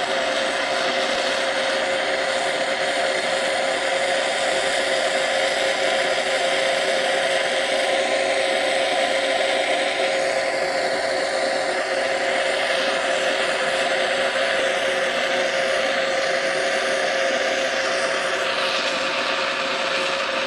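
Oxy-fuel torch flame running steadily into a ceramic melting dish, heating it to melt the glaze: a continuous even hiss with a steady tone underneath.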